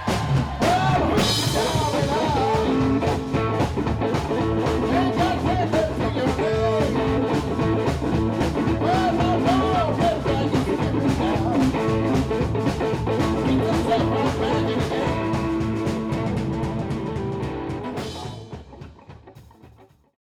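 Live blues-rock band playing, with an electric lead guitar sliding between notes over a steady beat. The music fades out and is gone just before the end.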